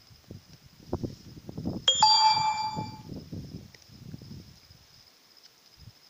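A bright metallic ding, struck twice in quick succession about two seconds in and ringing out for about a second. Underneath are low rustling noises and a faint steady high chirring of insects.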